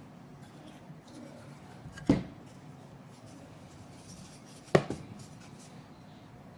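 Two sharp knocks of hard objects against a work surface, about 2 and 5 seconds in, amid faint handling and rubbing during work on a graphics card.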